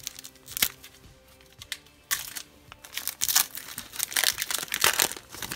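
Wrapper of a hockey card pack being crinkled and torn open, in irregular bursts of crackling, with faint background music underneath.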